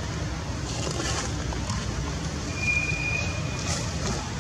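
Steady low outdoor background rumble, with a brief thin high whistle-like tone a little past the middle and a few faint clicks.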